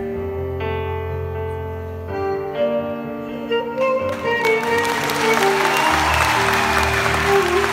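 Live instrumental music on kamancheh and keyboard, long held notes. About halfway through, audience applause breaks in and swells while the notes keep sounding.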